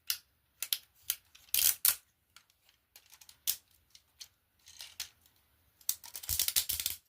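Plastic joints and panels of a leader-class Transformers action figure clicking and snapping as it is transformed by hand: irregular sharp clicks, with a denser run of clicking about six seconds in.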